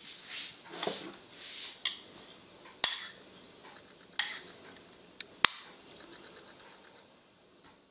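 A metal spoon clinking sharply against a bowl several times as tomato sauce is scooped out and dabbed onto pizza dough. The first second or so is soft brushing of hands over the floured dough.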